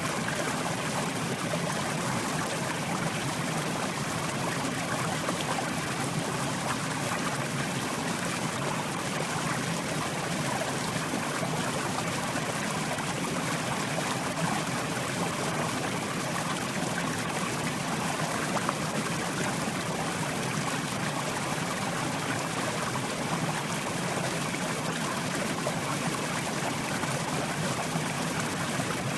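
Mountain river flowing over rocks: a steady rushing and babbling of water that does not change.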